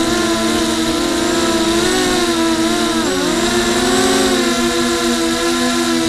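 Quadcopter's four brushless motors and propellers whining steadily, heard from on board. The pitch wavers and sweeps up and down as the throttle changes, dipping sharply about three seconds in during a hard banking turn.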